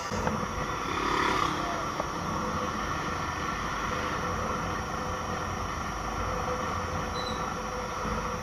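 Motorcycle running steadily while riding along a paved street, with a constant wash of engine, wind and road noise.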